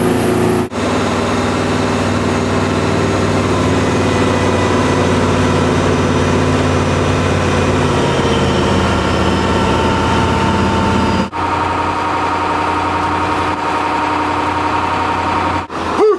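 Fishing boat's engine running steadily, heard from on board, with three brief breaks in the sound.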